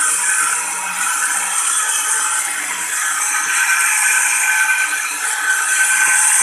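Electric cassava and coconut grater running steadily while a peeled cassava root is pressed into it and grated to pulp: a loud, even grinding rattle from the machine.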